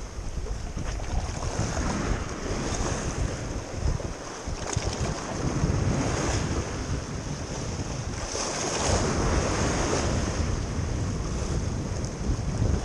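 Sea waves washing and breaking against shore rocks, swelling louder every few seconds, with wind buffeting the microphone.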